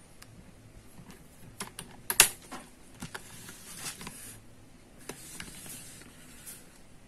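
A scatter of light clicks and taps, irregular like typing, the sharpest and loudest one about two seconds in.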